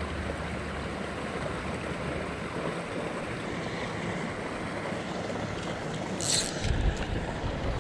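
Wind blowing across a GoPro microphone: a steady rushing noise, with a short sharp hiss about six seconds in and heavier low buffeting near the end.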